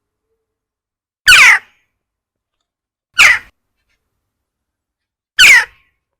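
Western jackdaw giving three short calls, each sliding down in pitch, about two seconds apart.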